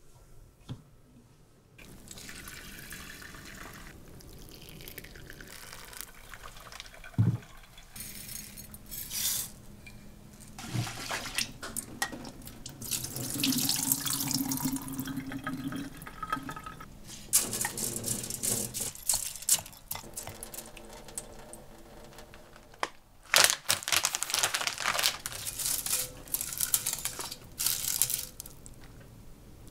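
Tap water running into a stainless steel kitchen sink in several spells as rice is rinsed and drained through a plastic rice-washing paddle, with a few sharp knocks and clinks of kitchen utensils in between.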